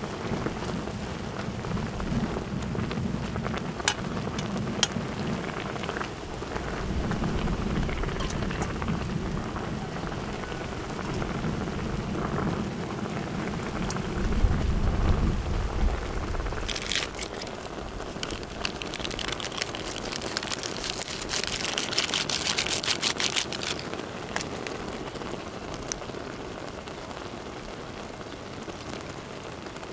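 Food frying on a hot pan, a steady sizzle with a patch of denser, sharper crackling about two-thirds of the way through. A low rumble runs under the sizzle through the first half.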